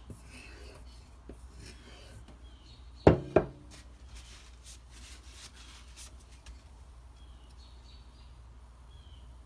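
A knife edge stroked along a strop loaded with white polishing compound, a light rubbing scrape. About three seconds in come two loud hard knocks a quarter-second apart with a brief ringing, then only faint ticks.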